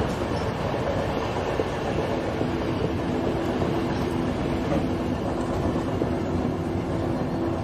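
Train running along the rails: a steady rolling noise of wheels on track. A low steady hum joins it about two and a half seconds in.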